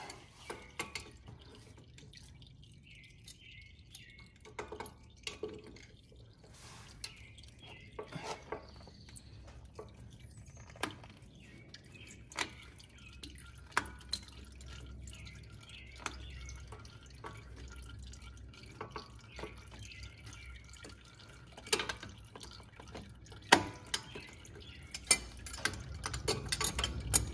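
Sparse, irregular small metallic clicks and taps of a screwdriver working at the spring clamp on a tractor's hydraulic hose, over a faint steady low hum. The clicks come closer together and louder near the end.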